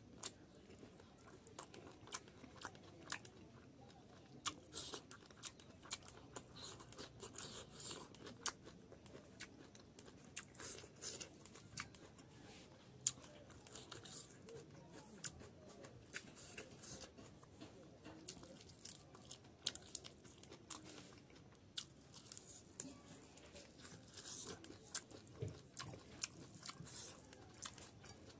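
A person chewing a mouthful of boiled pork fat and rice, eaten by hand: a steady run of short, sharp, wet mouth clicks.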